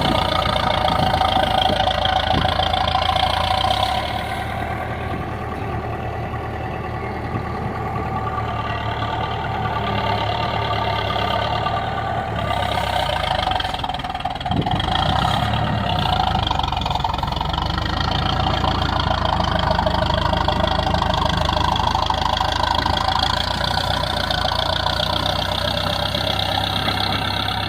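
Diesel engine of a piece of earthmoving equipment running steadily as it works. It drops back a little about four seconds in, then builds up again.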